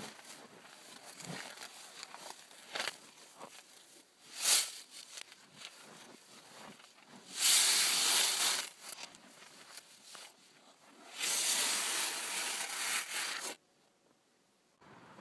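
A sheet of paper being torn, played backwards. There are a few short rips, then two longer, louder tearing sounds in the second half. The last one stops abruptly.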